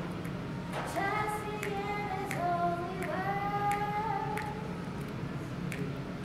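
Children's choir singing, holding sustained notes of about a second each and moving between pitches.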